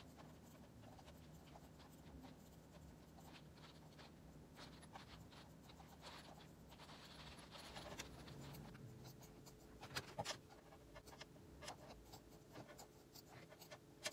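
Faint clicking of a computer keyboard being typed on, with a few louder clicks about ten seconds in.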